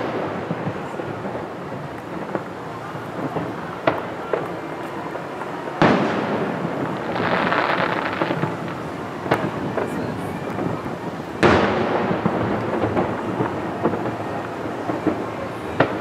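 Distant aerial fireworks: shells bursting with echoing booms, the loudest about six and eleven seconds in, with smaller cracks between. About seven seconds in comes a two-second stretch of hissing crackle.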